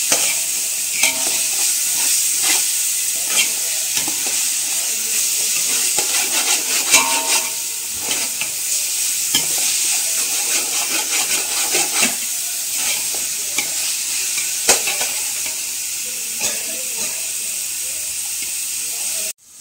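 Chopped vegetables sizzling as they fry in oil in a metal pot, with a steady hiss, while a metal slotted spoon stirs them, scraping and clicking against the pot many times. The sound cuts off abruptly near the end.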